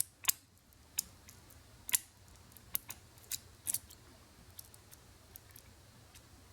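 Metal lock pick clicking against the pins of a UAP euro cylinder lock: about seven sharp clicks in the first four seconds, the loudest right at the start and about two seconds in, then only faint ticks.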